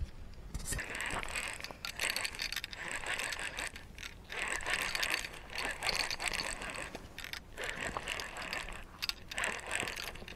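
Fishing reel being cranked in, a fast whirring ratchet-like clicking in several spells of reeling with short pauses between them.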